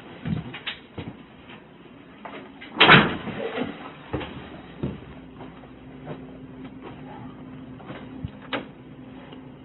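Doors being handled on a body-worn camera: scattered knocks and clicks, with a louder rustling bump about three seconds in. A faint steady hum comes in about halfway through.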